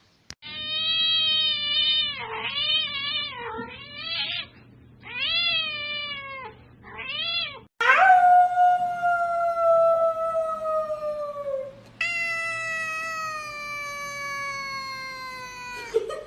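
A domestic cat yowling. First come a series of wavering, drawn-out meows, then two long yowls of about four seconds each, starting near 8 s and 12 s, each sliding slowly down in pitch.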